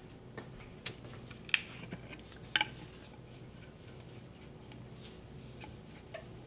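Light kitchen clicks and taps of utensils and dishes, with two sharper clinks about one and a half and two and a half seconds in, the second ringing briefly. A low steady hum runs underneath.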